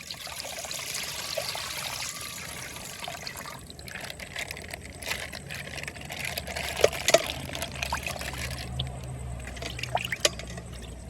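Water trickling and pouring out of a punctured plastic bag, strongest in the first few seconds, with scattered small clicks.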